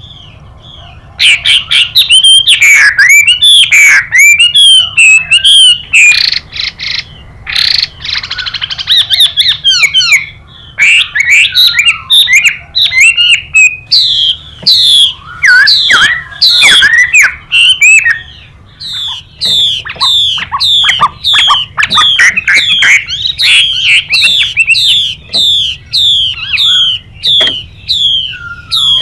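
Chinese hwamei (melodious laughing thrush) singing loud, varied whistled phrases with a harsh, hissing stretch about a third of the way in. From about two-thirds of the way in comes a long run of repeated down-slurred notes, about two a second.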